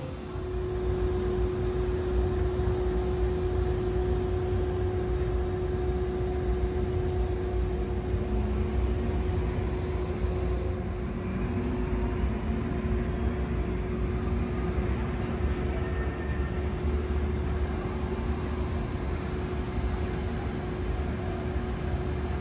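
Steady drone of a jet airliner parked at the gate, with a constant mid-pitched whine held over a low rumble and a faint high whistle.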